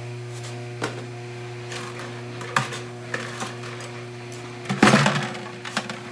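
Electric garage door opener running with a steady hum as the overhead door rises. Several knocks and rattles sound over it, the loudest about five seconds in.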